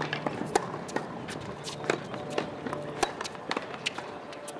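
Tennis rally on a hard court: sharp pops of the ball struck by rackets about every second and a quarter, with softer ball bounces and players' footsteps on the court between them.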